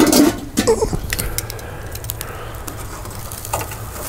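Metal grill tongs clicking and clattering against charcoal briquettes and the grill as a porterhouse steak cooking directly on the coals is picked up to be flipped, after a short vocal sound at the start.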